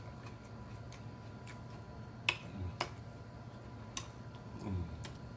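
Cayenne pepper shaker being shaken and handled: a few sharp, separate clicks and taps spread over several seconds, over a faint steady hum.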